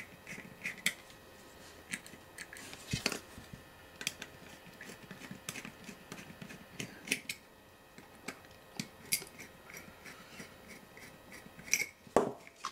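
Light, irregular clicks and taps of small metal parts and screws being handled while the sextant is taken apart.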